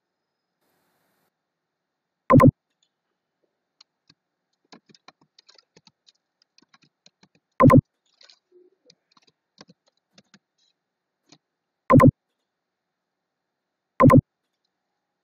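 Four short, loud computer alert beeps, all the same pitched tone, about two seconds in, near eight seconds, at twelve seconds and near the end. Between them, faint computer keyboard typing and clicks.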